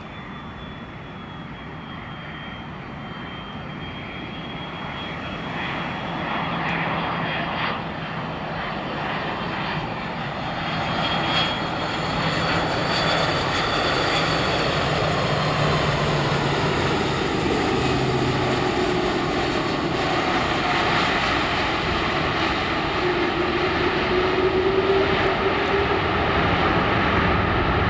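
Airbus A330-200 jet engines on final approach and landing: a steady rushing jet noise with a faint whine. It grows louder over the first ten seconds or so as the airliner nears, then stays loud as it touches down and rolls along the runway.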